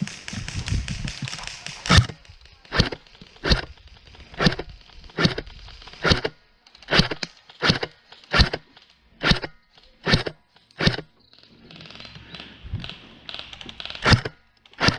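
Airsoft gun firing single shots, sharp cracks about one every 0.8 seconds, around a dozen in a row, then a pause and two more near the end. Rustling handling noise comes before the first shot.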